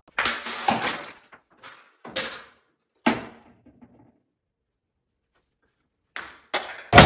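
Ping-pong ball and clear plastic cups clacking and clattering: several sharp knocks in the first second, single ones about two and three seconds in, and two light clicks near the end, each ringing briefly in a small room.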